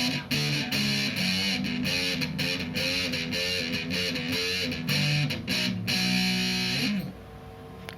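Ibanez GIO GRX40 electric guitar playing a run of picked notes, several of them bent in pitch. The playing ends about seven seconds in with a slide down, leaving only a faint steady hum and hiss.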